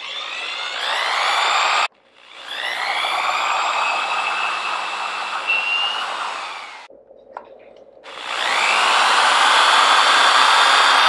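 Electric drill boring holes into a hollow net-handle shaft, run three times: each run winds up in pitch and then holds steady under load. The first run cuts off suddenly after about two seconds, and the third starts about eight seconds in.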